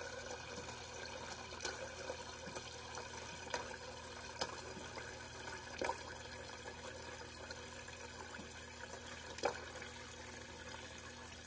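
Water from a refrigerator's door dispenser running steadily into a glass carafe, with a few faint ticks. The flow is flushing air and loose carbon out of a newly fitted water filter.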